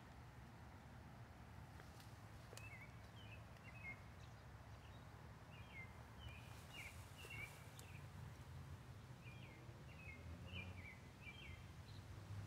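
Near silence in woodland: a small bird's faint, short chirps repeating through most of it, over a low steady hum.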